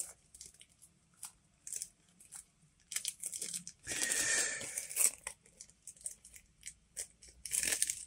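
Clear plastic cling-film wrap crinkling and crackling as fingers pick and pull at it, trying to tear it open while the film stretches without ripping. Scattered crackles, with a longer spell of rustling about four seconds in and another near the end.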